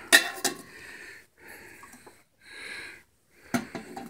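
Metal clinks as a pot is set onto the metal stand of a lit alcohol stove: a sharp clink just after the start, the loudest sound, and a few more about three and a half seconds in. Between them, slow breathing close to the microphone.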